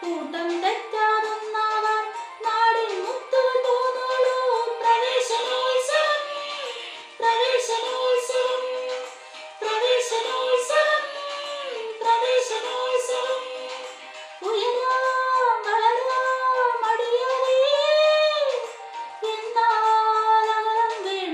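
A girl singing solo and unaccompanied: held notes that bend and waver with vibrato, in phrases of a few seconds broken by short pauses for breath.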